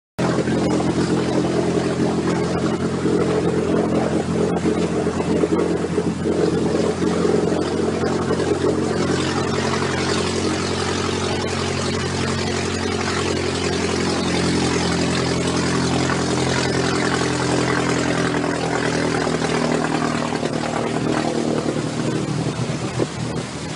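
An engine running steadily at an even speed, a constant hum under a wash of noise, cutting in abruptly at the start.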